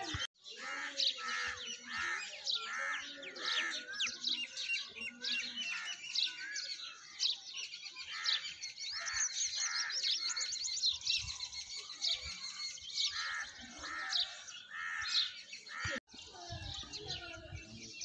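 A dense chorus of small birds chirping and twittering, many short high notes overlapping without a break.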